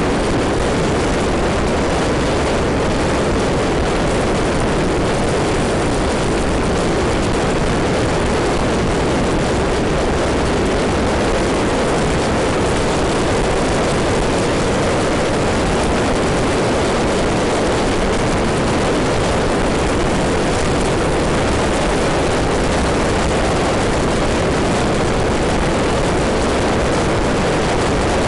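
Steady, loud rush of wind and engine noise from riding a maxi-scooter at road speed, with wind buffeting the microphone; it holds constant throughout with no changes in pitch.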